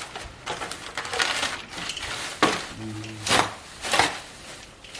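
A cardboard shipping box being opened and handled: a series of scrapes, rustles and knocks, about five of them sharper than the rest.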